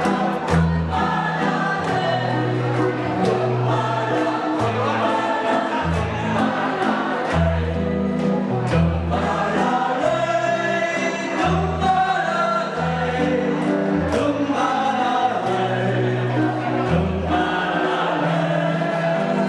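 Church choir singing a hymn with instrumental accompaniment: a moving bass line and a steady beat under the voices.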